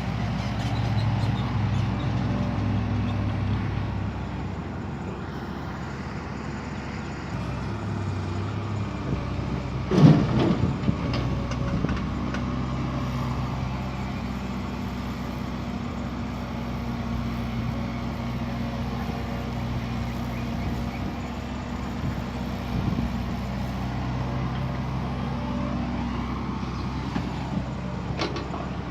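Heavy diesel earthmoving machinery running steadily, with one loud heavy thud about ten seconds in, followed by a few smaller knocks.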